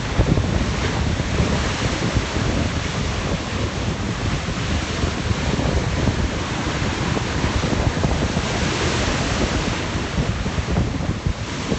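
Sea waves surging and breaking below a stone sea wall, loud enough to throw spray up, with wind buffeting the phone's microphone. The surf swells louder about a second in and again near eight seconds.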